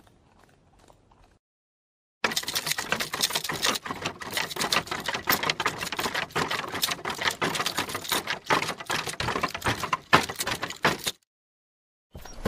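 Horses galloping on hard ground: a loud, dense, fast clatter of hoofbeats that starts suddenly about two seconds in and cuts off sharply about a second before the end.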